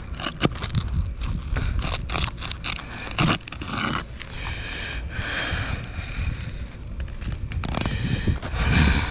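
Tool scraping and clicking against roof shingles as a shingle is pried and worked loose to reach its nails: a run of sharp clicks, then longer rasping scrapes.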